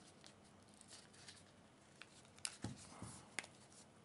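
Faint handling sounds of a two-piece phone case, a TPU sleeve with a hard plastic back, being pressed onto a phone: soft rubbing, then a few sharp plastic clicks in the second half.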